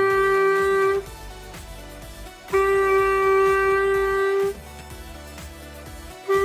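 Clarinet playing long held notes on one pitch: a note that ends about a second in, a second note held about two seconds, and a short note at the end, with pauses between.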